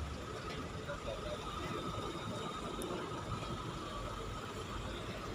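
Steady vehicle and road background noise with a faint high steady tone, and no distinct event.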